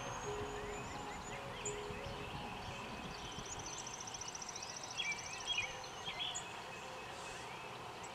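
Outdoor ambience of small songbirds chirping, with a fast, high trill from about three seconds in that lasts about three seconds.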